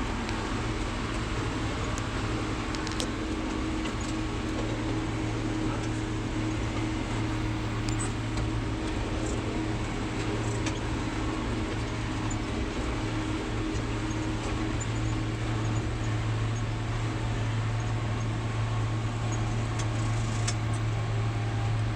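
Engine of a hay-mowing machine running steadily under load while cutting grass, a constant low hum with no change in speed.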